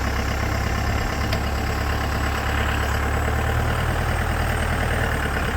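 Mahindra 4x4's DI turbo diesel engine running steadily at low revs.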